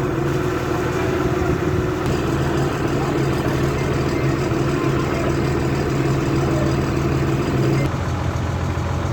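Crane's diesel engine running steadily, its note changing about eight seconds in.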